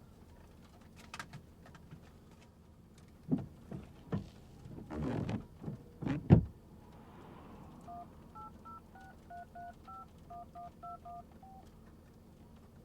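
Phone keypad dialing: a quick run of about a dozen short touch-tone beeps, each two tones at once, as a number is keyed in. Before it come a few clicks and knocks of the phone being handled.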